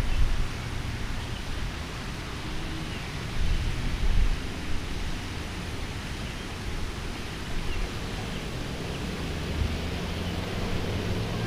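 Wind buffeting the microphone: a steady hiss with low rumbling gusts, strongest at the very start and again around four seconds in.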